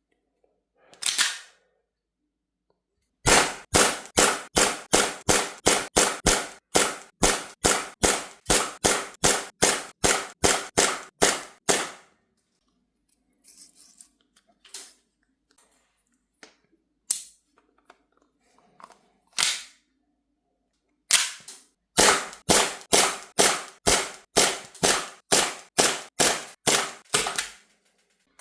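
Tokyo Marui Colt M1911 gas-blowback airsoft pistol firing: a single shot, then a long fast string of about three shots a second, a pause with faint clicks and a few single shots, then a second fast string, all on one fill of gas.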